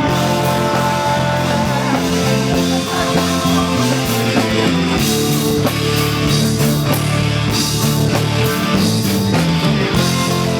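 Pop-rock band playing an instrumental passage of a song, with guitar, bass and drum kit and no vocals.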